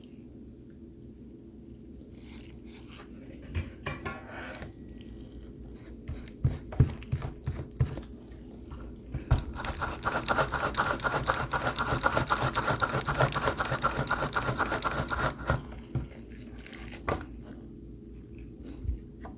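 Scattered handling clicks and knocks, then about six seconds of rapid, even scraping strokes, over a steady low hum.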